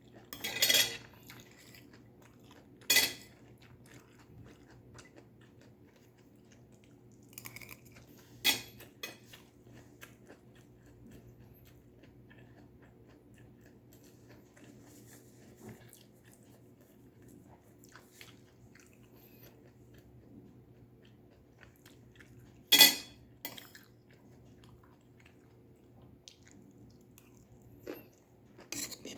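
Close-up eating sounds of stir-fried vegetables: quiet chewing and crunching, broken by about four sharp, loud clicks of bites or cutlery on a dish.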